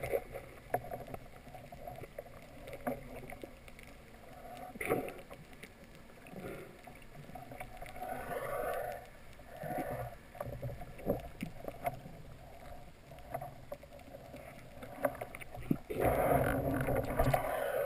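Underwater ambience heard through a camera housing: faint water noise with scattered small clicks and ticks, swelling into a louder rush of water moving past the housing near the end.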